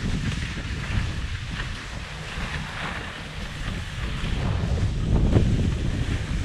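Wind buffeting a helmet-worn GoPro Hero 7 Black's microphone during a downhill ski run, a heavy rumble with the hiss of skis scraping over snow. It eases off in the middle and swells again about five seconds in.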